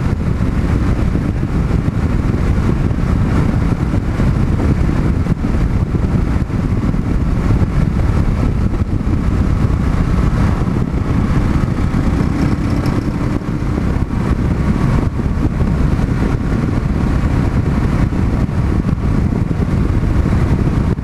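Kawasaki KLR650's single-cylinder four-stroke engine running steadily at cruising speed, mixed with wind rushing over the helmet-mounted microphone.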